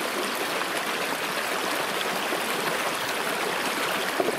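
Shallow stream rushing and splashing over rocks, a steady water noise, with a couple of short sharp clicks about four seconds in.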